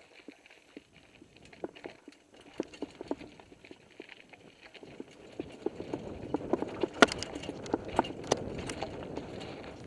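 Mountain bike rolling down a rocky trail: irregular clicks and knocks as the bike and camera mount jolt over loose rocks, sparse at first, then denser and louder about halfway through, over a rising rush of tyre and wind noise as speed builds.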